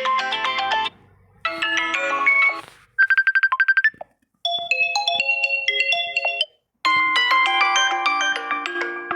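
Messenger's video-call ringtone previews playing one after another. Each short melodic tone is cut off after a second or two as the next one is selected, and the one about three seconds in is a rapid trilling ring.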